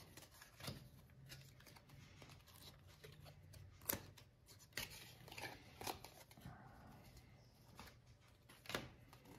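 Faint flicks and rustles of baseball trading cards being flipped through by hand, a card slapped or slid onto the stack every second or two.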